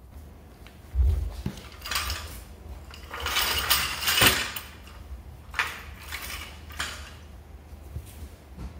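Metal tools and parts clinking and clattering as they are handled, with a low thump about a second in and a longer rattling stretch around three to four seconds.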